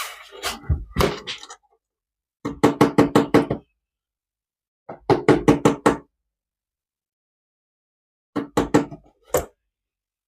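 Rapid knocking on a hollow surface, in three bursts of several quick knocks each, separated by silence.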